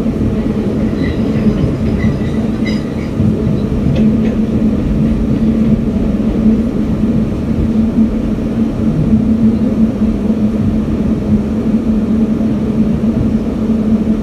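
Passenger train running at speed, heard from inside the carriage: a steady rumble of wheels on rail with a constant droning hum. A few faint short high squeaks come in the first few seconds.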